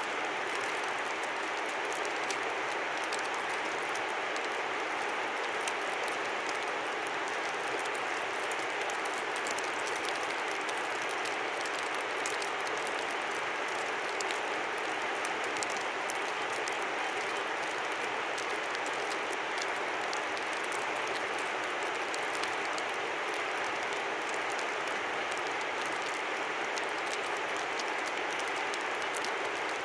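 River flowing with a steady rush, with a fine crackle of many small ticks over it.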